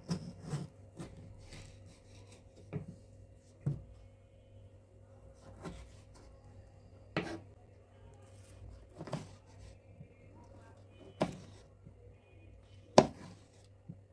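Kitchen knife slicing through a tomato and tapping on a wooden cutting board: about a dozen separate knocks at uneven intervals, roughly one a second, the loudest near the end, over a faint steady hum.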